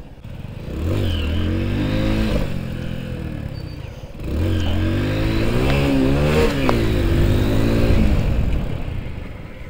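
Motorcycle engine revving and accelerating hard in two bursts, the pitch climbing and falling, as the rider pulls a wheelie. The engine fades toward the end.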